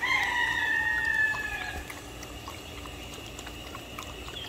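A rooster crows once, one long call falling slightly in pitch over nearly two seconds. Water from a hose spray nozzle runs into a plastic bucket throughout.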